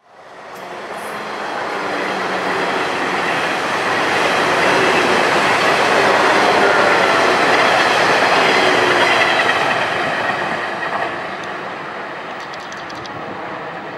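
A 12-car TRA EMU300 electric multiple unit running past on the main line, its wheels and cars rushing by. The noise swells to its loudest midway, then eases off as the train moves away.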